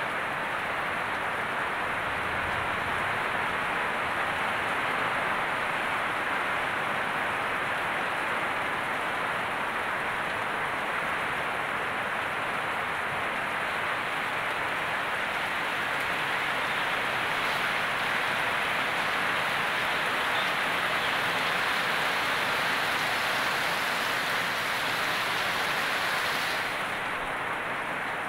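Heavy rain falling steadily on leaves and aviary netting, a continuous even rush that eases slightly near the end.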